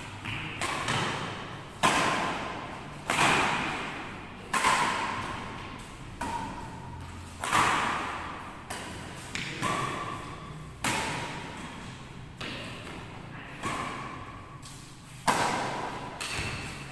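Badminton rally: about a dozen sharp racket strikes on the shuttlecock, one every second or so, each ringing out briefly in a large hall.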